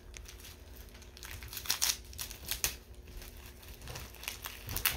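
Gift packaging being handled and crinkled, in short irregular crackles and rustles that come in clusters about two seconds in and again near the end.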